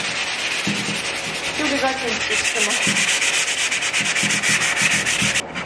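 Sandpaper rubbed by hand over the bare wood of an old chair frame, a steady rasp that about two seconds in turns into quick, even back-and-forth strokes and stops near the end.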